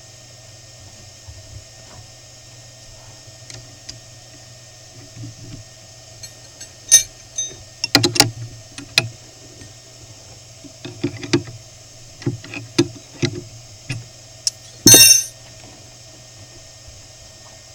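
Small CNC PCB mill running with a steady hum and a high spindle whine. From about halfway through come irregular sharp clicks and knocks, with the loudest group near the end.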